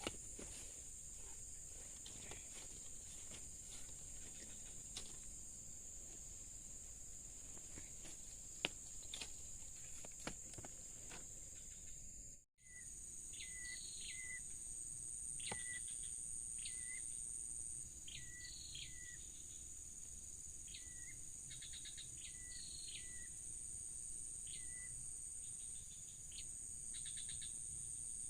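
Steady high-pitched insect chorus, crickets or cicadas, with a few scattered clicks; the sound cuts out for a moment near the middle, and after that a run of short chirps repeats every second or so over the insect drone.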